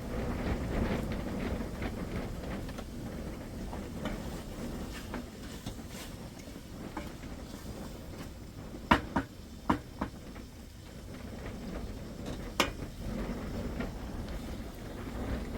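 Wind buffeting the microphone: a low rumble that rises and falls throughout. Past the middle there are three quick sharp knocks close together, and one more a few seconds later.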